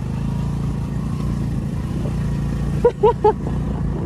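Motor scooter engine running steadily, with three short voice-like calls about three seconds in.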